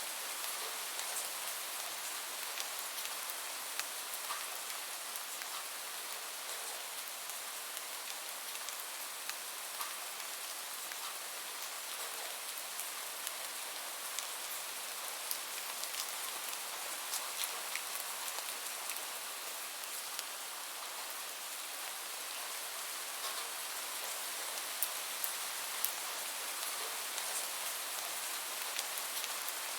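Light rain falling steadily, a soft even hiss with scattered individual drops ticking on a hard surface.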